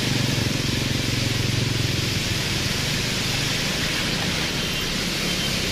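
Heavy rain hissing steadily as a motor scooter and cars creep past at low revs, their engine hum strongest in the first two seconds.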